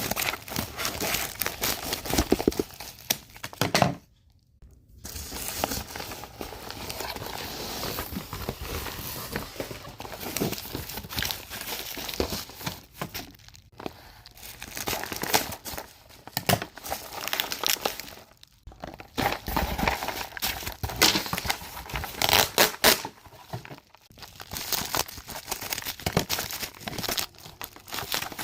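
Packaging being crinkled, rustled and torn open while a parcel is unwrapped. The crackling comes in irregular handfuls, with a few short pauses.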